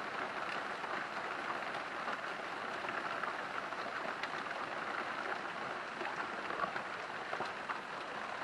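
Steady rain falling, with the small ticks of single drops hitting surfaces; no thunder.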